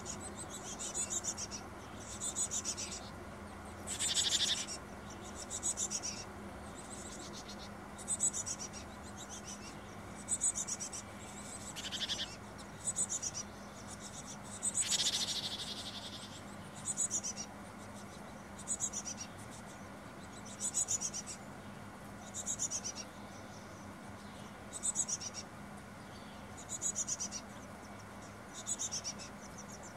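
Carolina chickadee nestlings begging inside the nest box: a short, high, buzzy call repeated about every one to two seconds. Three louder hissing sounds break in, about four, twelve and fifteen seconds in.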